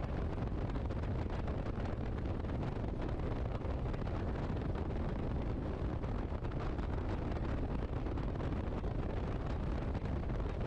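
Vintage biplane's engine idling steadily, heard from the open cockpit, with wind rumbling on the microphone.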